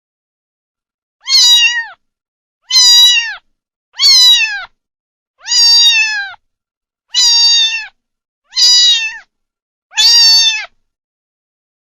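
Kitten meowing, seven high-pitched meows about a second and a half apart, each one bending down in pitch at its end.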